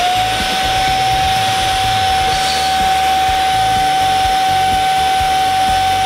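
Inse S6 cordless stick vacuum running steadily at full speed: a high, even motor whine over a rush of air.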